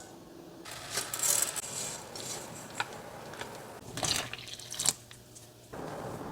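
Several sharp metallic clinks, a utensil striking a stainless steel pot, over cooking noise; the loudest comes near the end, and the background hiss changes abruptly twice.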